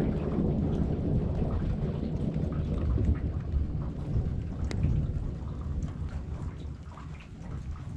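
Thunder rumbling low and rolling, dying away over the last couple of seconds, with a few raindrops ticking.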